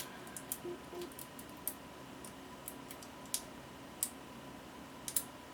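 Light, irregular metallic clicks and taps, a few each second: small tools and a shim working against a pin-tumbler safe deposit lock as it is being shimmed for disassembly.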